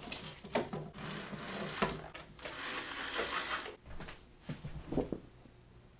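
A person moving about a small room and handling things: rustling and a run of rapid rattling clatter, with a few sharp knocks.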